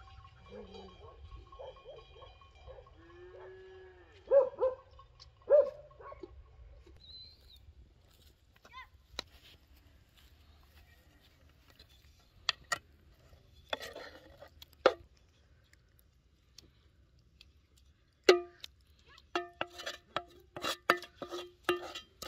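A farm animal calls a few times in the first seconds, a pitched, curving call typical of cattle lowing. Later, a wooden spoon scrapes and knocks chopped orange out of a metal pan, ending in a quick run of sharp taps that make the pan ring.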